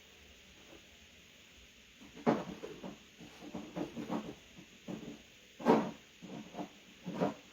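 Irregular knocks and clatters of hard parts being handled and pushed into place, starting about two seconds in after a quiet start, the loudest a sharp knock a little past the middle.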